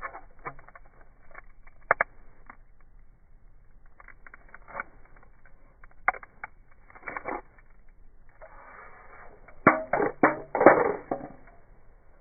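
Scattered knocks and clattering, sharp single clicks with quiet gaps between them, then a quick cluster of louder knocks about ten seconds in.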